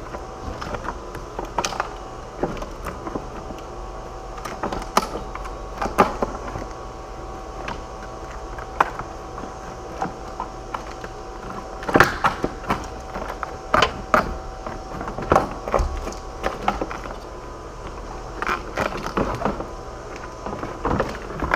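Irregular knocks, clicks and scrapes as a Jeep JK's factory battery tray is shimmied loose and worked up out of the engine bay, with a faint steady hum underneath.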